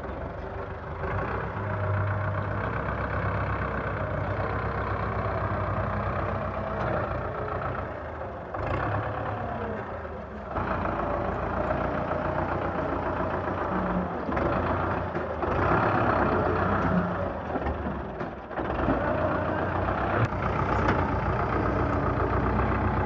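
Belarus 510 tractor's diesel engine running under load as its front loader digs into straw and lifts it, the engine note rising and falling with the work.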